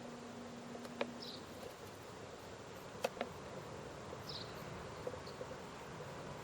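Quiet outdoor background with faint insect buzzing, a few short high chirps and a couple of sharp clicks. A low steady hum stops about a second in.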